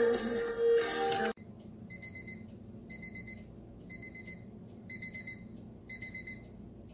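Music from the USCCE UE-168 clock radio's FM tuner cuts off suddenly about a second in. The clock's alarm then beeps: five bursts of quick, high-pitched beeps, about one burst a second.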